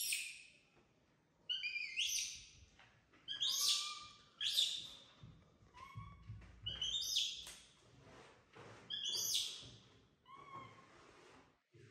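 Baby monkey calling: a string of short, high-pitched squealing calls, one every second or two.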